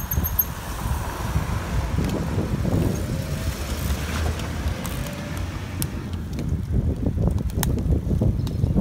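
Wind buffeting the microphone of a camera on a moving road bicycle, a steady low rumble along with tyre noise on pavement, with several sharp clicks in the second half.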